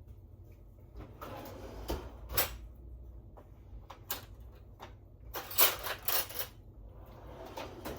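Kitchen handling sounds of utensils and dishes: scattered sharp clicks and knocks with some soft rustling, and a quick run of louder knocks a little past halfway.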